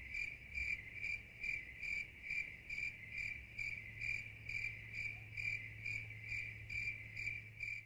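Crickets chirping in an even rhythm, a little over two chirps a second. The sound starts and stops abruptly, like a stock 'awkward silence' sound effect laid over the wait for a bottle rocket that has not launched.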